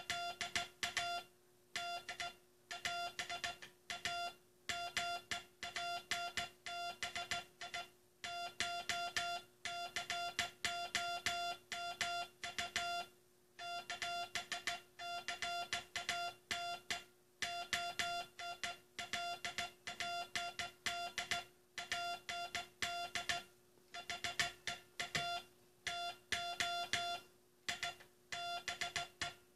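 Morse code sent by hand as a steady mid-pitched CW tone keyed on and off in dots and dashes, with short pauses between letters and longer ones between words. It is the text of the U.S. Coast Guard's last Morse code message. A faint steady hum sits underneath.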